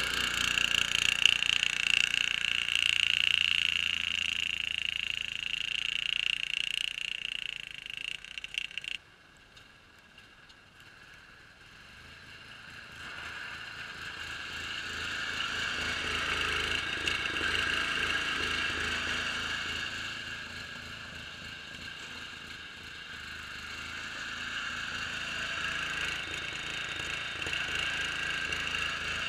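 Homemade six-wheeled Craftsman garden tractor's engine running as it plows snow, with a steady high whine over its note. The sound cuts off suddenly about nine seconds in, then grows louder and fainter twice as the tractor comes near and moves away.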